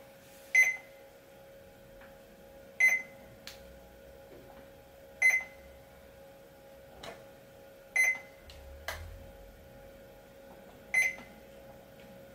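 GT-7120 desktop 2D barcode scanner beeping five times, one short high beep every two to three seconds, each beep marking a barcode read and sent to the computer.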